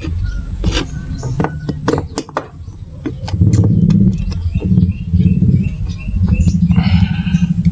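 Sharp clicks and rattles of speaker wires being worked into a cabinet's spring-clip terminals, over a loud low rumble. A small bird chirps repeatedly in the background, about three short chirps a second, mostly in the middle.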